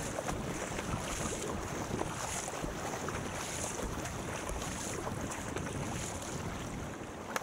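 Wind buffeting the microphone over open sea, with water rushing and splashing around a surfski as it is paddled; a high hiss swells about once a second with the paddle strokes.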